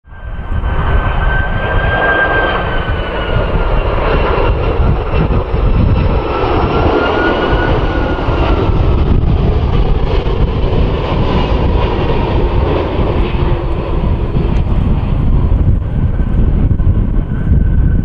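Airbus A330 airliner landing: a low rumble of its jet engines with a whine that slowly falls in pitch as it passes close by. Wind is buffeting the microphone.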